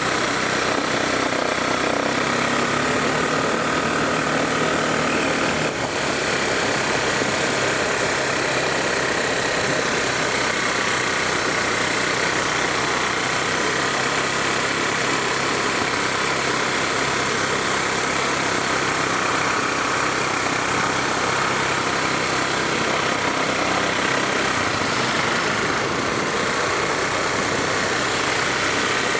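ATV engine running steadily under way, its hum mixed with a constant rushing noise.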